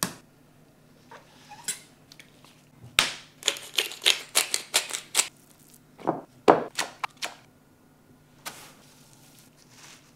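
Close-miked food prep: gloved hands patting and pressing a raw salmon fillet, working it through salt and then panko breadcrumbs, in quick runs of crisp crunches and slaps over a faint low hum.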